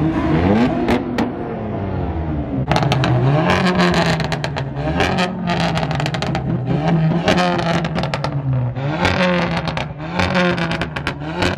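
A car engine being revved over and over in place, its pitch climbing and dropping about every two seconds, with bursts of sharp crackling through the revs.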